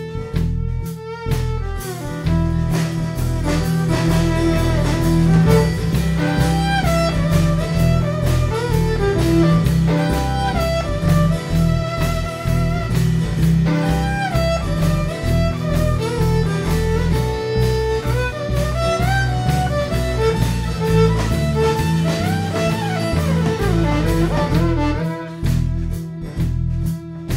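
Live band playing an instrumental passage: a fiddle carries the melody with sliding notes over guitar and a steady bass.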